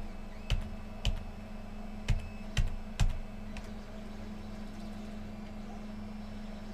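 Clicking at a computer: five sharp clicks in the first three seconds, then only a steady low hum.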